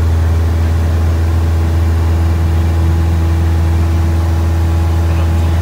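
Cessna 172SP's four-cylinder Lycoming IO-360 engine and propeller running steadily in flight, a constant loud drone heard from inside the cockpit.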